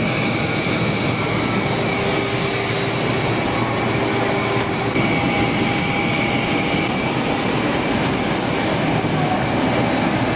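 Jet airliner turbines running: a steady loud rush with several high whining tones on top, which shift in pitch mix about five and seven seconds in.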